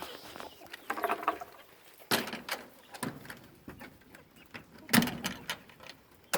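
Chicken coop door being handled: several sharp wooden knocks and rattles, about a second apart, the loudest about five seconds in, with a brief hen cluck about a second in.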